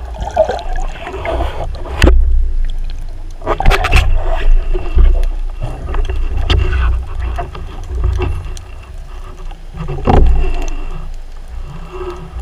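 Underwater noise through a speargun-mounted camera: a constant low rumble of water moving past the housing as the diver swims, broken by sharp knocks and clicks about two seconds in, a cluster around four seconds in, and another near ten seconds.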